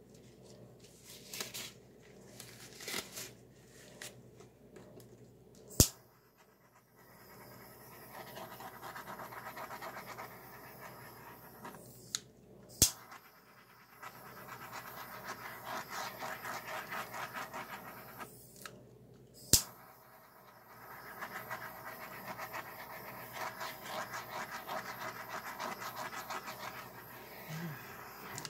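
A small handheld butane torch is clicked on three times, and each time the flame hisses steadily for about five seconds before it is shut off. It is being passed low over wet poured acrylic paint. A few faint scratches come before the first click.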